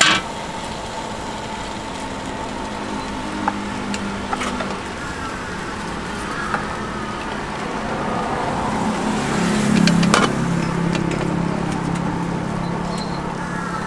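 Street traffic: a motor vehicle's engine runs close by, getting louder about ten seconds in, over a steady background din. There are a few short knocks and clinks.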